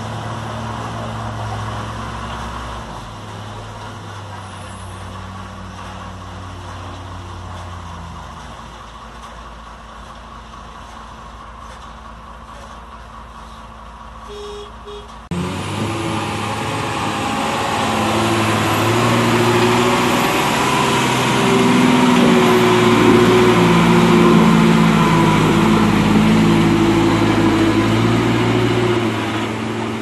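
Diesel engine of a JCB 3DX backhoe loader running steadily, heard from inside its cab, as a truck comes toward it. About fifteen seconds in, a sudden change brings a louder Tata 12-wheeler truck's diesel engine working hard, its pitch rising and falling as the truck drives through deep mud.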